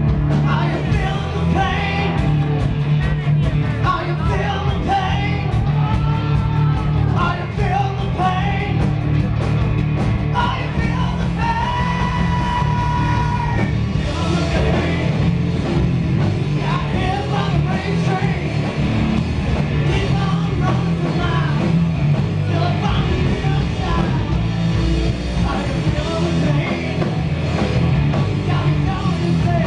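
Live hard rock band playing: distorted electric guitars, bass and drums, with a male voice singing and shouting over them, including one long held note about halfway through.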